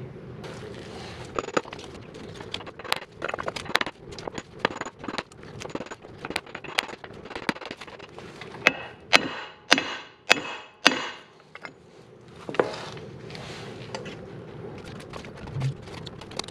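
Hammer tapping on a large socket to drive a roller bearing into a mulcher's bearing housing: a string of irregular sharp metallic knocks, the loudest near the middle.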